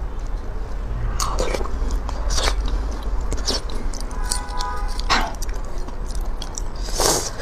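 Close-miked metal cutlery scraping and clicking against roasted beef marrow bones as the marrow is pried out, with wet squishes. There are a handful of separate sharp scrapes and a brief squeak about halfway through, over a low steady hum.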